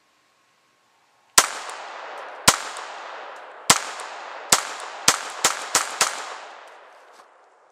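Eight .22 LR pistol shots from a Glock 29 fitted with an Advantage Arms .22 conversion kit: the first three about a second apart, then five in quick succession. Each shot leaves an echo that dies away near the end.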